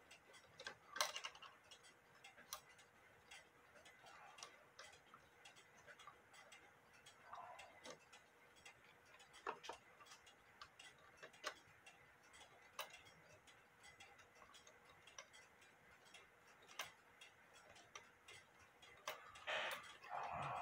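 Faint, sharp clicks from a Warmink Dutch wall clock's movement as its hand is turned by hand, spaced roughly one to two seconds apart.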